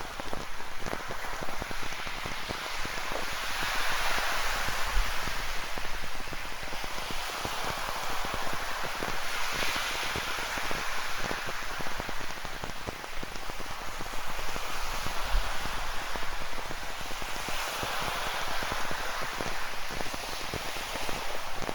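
Rain falling close by, with many small drop hits, over ocean waves rushing in and washing back, which swell louder every several seconds.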